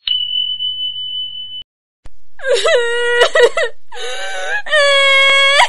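A steady high beep for about a second and a half. After a short pause comes an exaggerated high-pitched crying wail in long, drawn-out sobs with short breaks between them.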